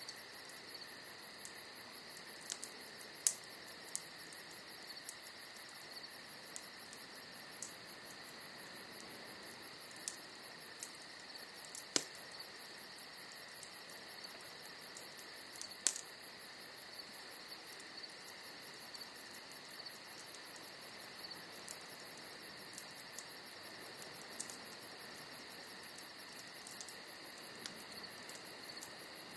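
Wood bonfire crackling with a few sharp isolated pops, the loudest about twelve seconds in, over a steady high chirring of night insects.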